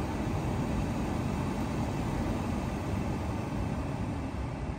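Steady rushing hum of moving air from a blower fan, with no distinct pitch, heaviest in the low end.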